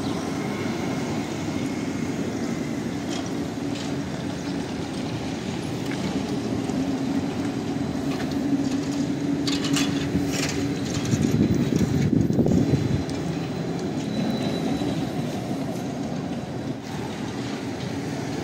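Traffic on a city street: a steady drone with a low hum that builds through the middle and is loudest about twelve seconds in, with a few sharp clicks shortly before.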